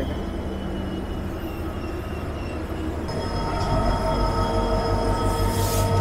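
Passenger train coaches rolling on the rails with a steady rumble. About halfway through it grows louder and a steady, high wheel squeal sets in.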